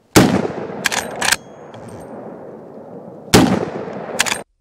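Two shots from a Henry lever-action rifle in .45-70, about three seconds apart, each with a long rolling echo and each followed by two sharp clacks. The sound cuts off suddenly near the end.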